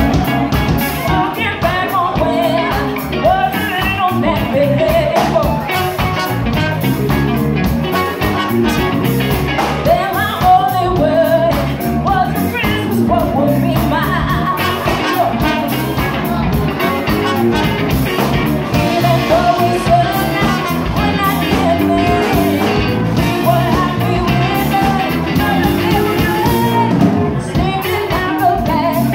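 Live band music: a woman singing lead into a microphone over a drum kit, with saxophone and trumpet playing.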